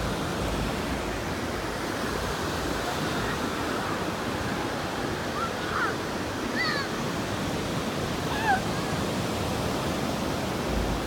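Ocean surf breaking on a sand beach, a steady wash of noise. A few faint short calls rise and fall about halfway through.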